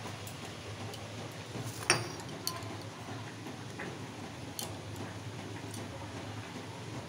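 A few sharp clicks, the loudest about two seconds in, with smaller ones soon after and past the middle, over a low steady hum.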